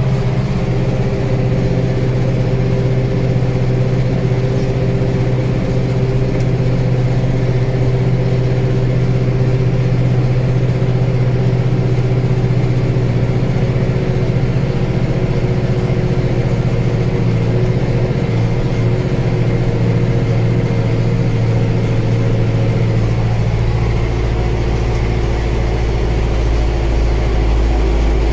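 Zetor Proxima GP 110 tractor's four-cylinder turbo diesel engine running steadily under load, heard inside the cab, as it climbs a hill towing a Pronar 663/2 trailer. The low engine note changes about three-quarters of the way through.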